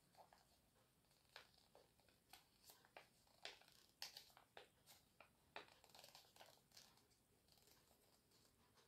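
Faint crinkling and rustling of a small strip of paper being rolled tightly into a tube between the fingers, heard as a string of short, irregular crackles.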